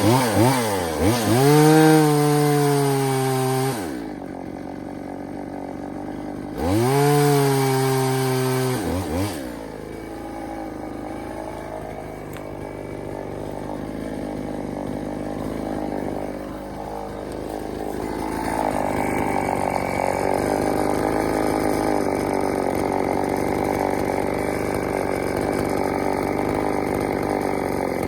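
EFCO two-stroke chainsaw revved up to full throttle twice, its pitch rising then holding. It then cuts into wood, running rougher and steadier under load, and grows louder about two-thirds of the way through.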